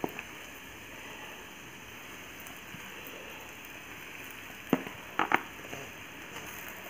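Onion-and-spice masala sizzling steadily in a pot on a gas flame as crumbled boiled potato is dropped in. A few sharp clicks of a metal fork against the pot come about two-thirds of the way through.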